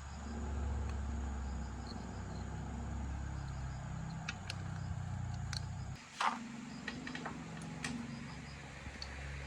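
A motorbike engine idling steadily. It dips out briefly about six seconds in with a sharp click, then runs on, with a few light ticks over it.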